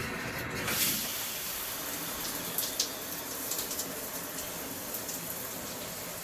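Newly installed shower head spraying water steadily, running as a test for leaks at the fresh connection. The spray is loudest in the first second, then settles to an even hiss.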